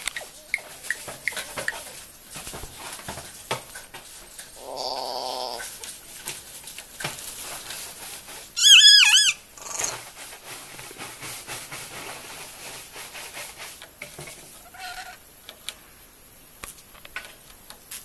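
Kākā calling: a harsh grating call about four and a half seconds in, then a loud, high call of quickly repeated rising-and-falling notes about nine seconds in, with a fainter short call near the end; harsh grating calls are the kākā's threat call in a spat. Light clicks and scratches between the calls.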